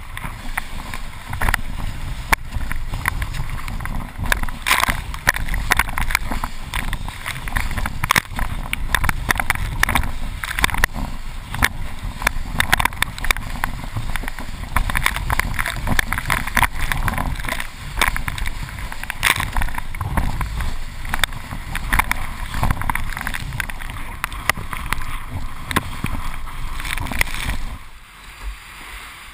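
120-litre Firemove windsurf board planing fast over choppy water: the hull slaps the chop many times a second and spray rushes past, heard close up from a camera on the boom with wind buffeting the microphone. The noise drops off suddenly near the end.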